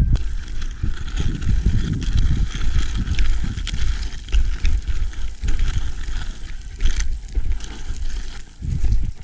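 Wind buffeting the microphone in uneven gusts, with the crunch and scrape of boots on loose scree and gravel as someone walks down a steep stony slope.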